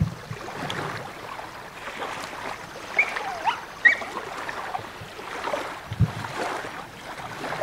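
Small dog giving a few short, high-pitched yelps and whines, about three and four seconds in, because it won't jump into the water after its owner. Wind and lapping lake water run underneath, and there is a low thump about six seconds in.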